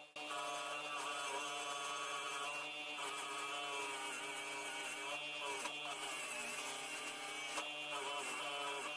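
Electric motor of a homemade bench grinder spinning an abrasive disc, running with a steady whine of several held tones that dips briefly a few times, as a steel strip is held to the disc's edge.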